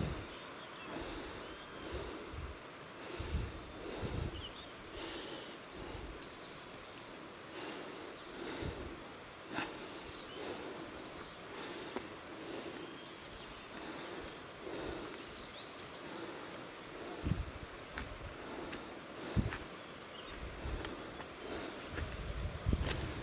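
Steady high-pitched chorus of insects such as crickets or cicadas, unbroken throughout. Faint rustling and a few soft knocks sound underneath.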